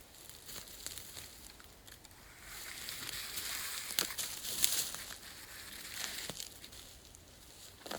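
Crinkly rustling that grows denser about two and a half seconds in and eases off after five seconds, with a few sharp clicks mixed in.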